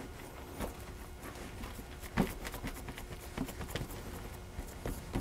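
Wet hands patting and pressing a sticky dough log on a silicone-lined baking sheet: a scatter of soft, irregular pats and taps, the loudest about two seconds in.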